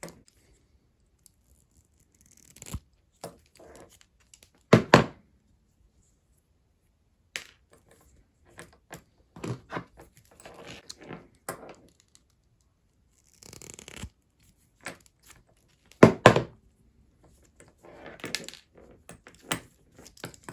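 Handling of steel end-cutting nippers, rivets and leather on a workbench: scattered clicks, taps and scrapes as the nipper jaws are worked under copper or brass rivet heads. Two loud sharp knocks stand out, one about five seconds in and one about three-quarters of the way through.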